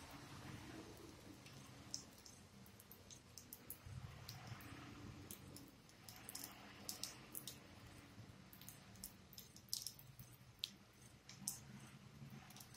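Near silence, with faint irregular sharp clicks and a low steady hum underneath.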